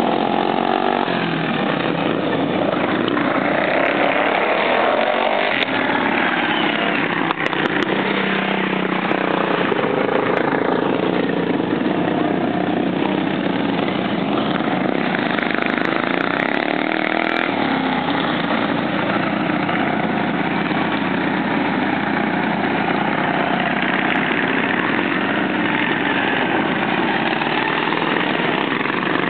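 Several racing lawn mowers' small engines running hard together, their pitches rising and falling as they accelerate and ease off.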